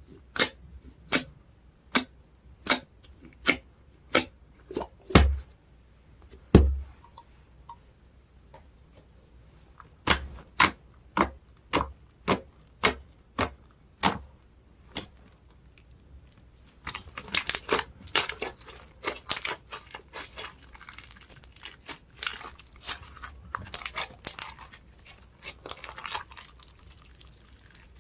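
Slime being played with by hand: sharp sticky clicks and pops at an even pace of a little over one a second, two heavier thuds a few seconds in, then a denser run of crackly clicks in the second half.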